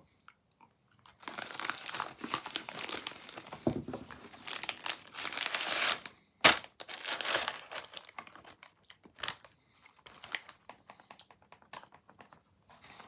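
Plastic snack wrapper crinkling and rustling as it is handled, heaviest in the first half, with a single sharp click about six and a half seconds in, then a few faint crackles.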